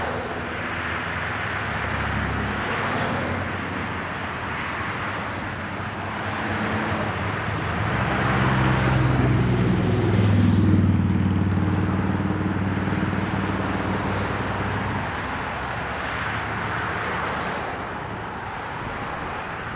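Road traffic on a multi-lane highway: a steady stream of cars and pickups driving past with tyre noise and engine hum. It grows louder around the middle as a nearer vehicle's low engine drone passes, then eases off.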